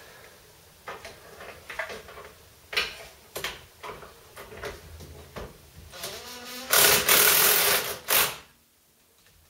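Scattered light knocks and clicks of hand work on a van's front brake caliper, then, about seven seconds in, a loud rustle for about a second and a half as the mechanic's overalls rub against the microphone.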